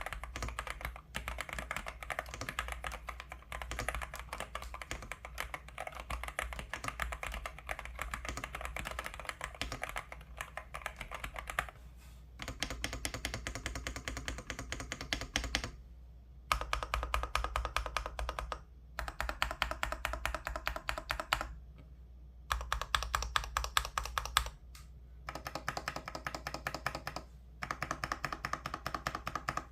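Fast typing on a Dareu A98-series gasket-mount mechanical keyboard, a dense run of keystrokes. It comes in several stretches broken by short pauses every few seconds.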